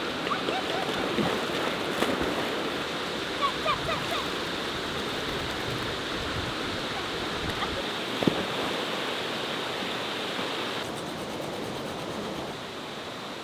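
Steady rushing of water, an even hiss with no rhythm, with a few short faint chirps about three to four seconds in and a single sharp knock about eight seconds in.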